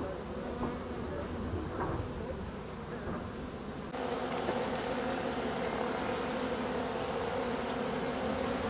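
Honeybees buzzing in large numbers around hives opened for the honey harvest: a steady, many-toned hum that gets abruptly louder about four seconds in.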